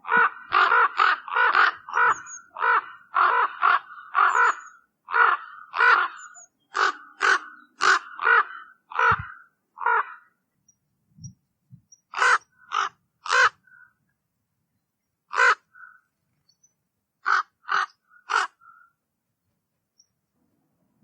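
Common raven calling in a rapid series of short caws, about two a second. After a brief pause about halfway through, the caws come singly and further apart.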